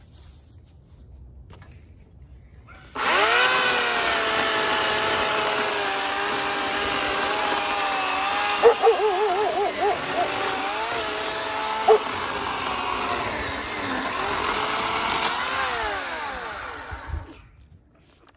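Homelite 14-inch 9-amp electric chainsaw starting up about three seconds in and cutting through a fallen locust limb. Its motor pitch sags and wavers under the load of the cut, then winds down near the end as the cut finishes, with a short thump just after.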